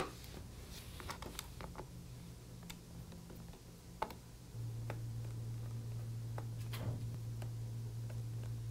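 Faint ticks and clicks of a precision Phillips screwdriver working screws out of a MacBook Air's heatsink, with a sharper click right at the start as a part is set into a plastic parts tray. About halfway through, a steady low hum comes in.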